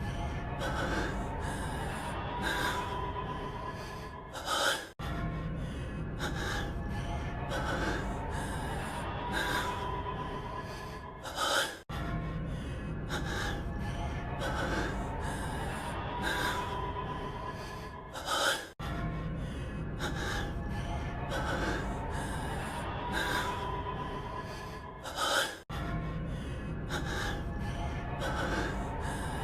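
Heavy, gasping breaths of an anime character's voice over quiet background music. The same stretch of about seven seconds repeats over and over, each pass ending in a louder, sharper gasp and an abrupt cut back to the start.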